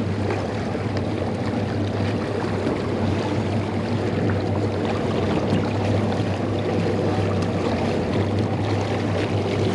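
Boat engine running steadily at trolling speed, a low even hum under the rush of water and wind.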